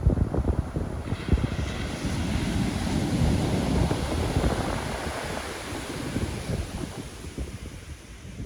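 Pacific Ocean surf: a wave breaks about a second in and its wash hisses, then slowly fades away. Wind buffets the microphone throughout.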